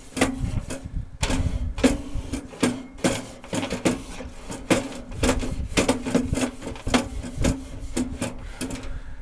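Wire grill brush scrubbing back and forth across a charcoal grill's metal cooking grate: a rapid, irregular series of scraping strokes, about two to three a second, over a steady low hum.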